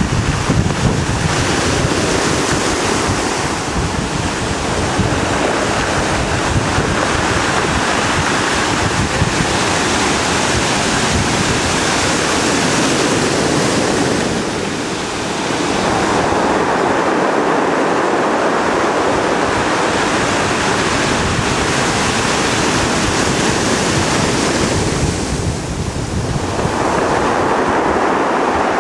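Atlantic surf breaking over rocks and washing along a concrete sea wall at a very high tide: a continuous loud wash of breaking waves that swells and eases, dipping briefly twice. Wind buffets the microphone with a low rumble underneath.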